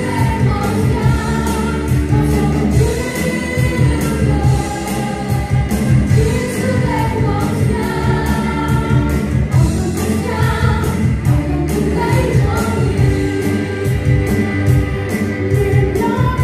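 Live gospel praise-and-worship song: a group of singers, women in the lead, singing together over a band of drum kit, bass, electric and acoustic guitars, with a steady beat.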